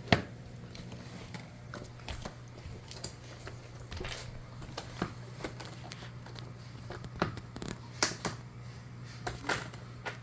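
Scattered light clicks and clacks of hard toy pieces being handled and set down, with a sharp knock right at the start and a few more near the end, over a steady low hum.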